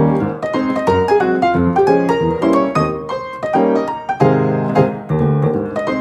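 Background piano music: a light melody of quickly struck notes over a bass line.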